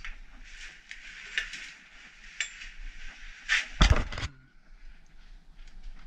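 Clinks, rustling and clatter of metal junk being handled and shifted, with a louder cluster of clattering knocks about four seconds in.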